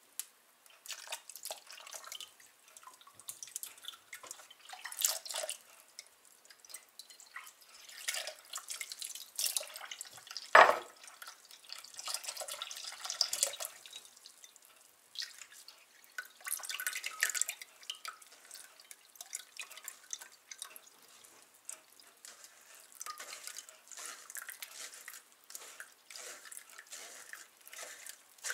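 Flax seeds being rinsed in a metal mesh strainer over a kitchen sink: tap water splashing and dripping through the seeds as fingers stir them. One sharp knock about ten seconds in.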